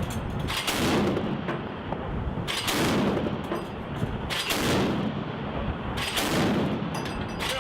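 Mk 38 25mm naval gun (M242 Bushmaster chain gun) firing, four heavy reports roughly two seconds apart, each followed by a long rolling echo.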